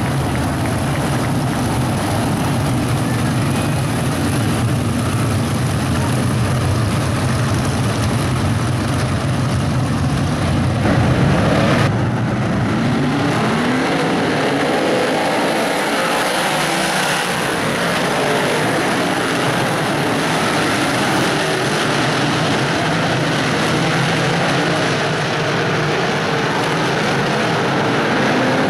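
A pack of big-block modified dirt race cars with V8 engines, running together around the track. About twelve seconds in the deep steady drone thins out, and engines are heard revving up and down in pitch.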